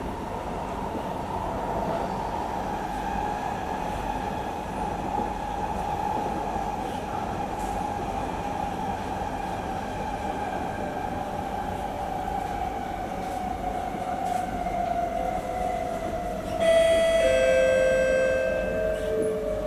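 Electric metro train's motor whine falling steadily in pitch as the train slows for a station, over the carriage's running rumble. Near the end an electronic chime sounds, the cue for the arrival announcement.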